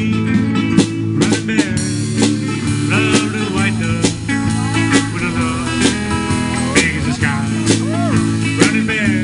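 Live electric guitar and drum kit playing an instrumental break, the guitar's lead line full of bent notes over a steady drum beat.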